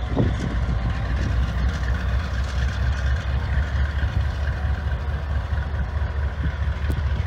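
GE B36-7 diesel locomotive's V16 engine running with a steady low rumble as it backs a string of covered hoppers slowly.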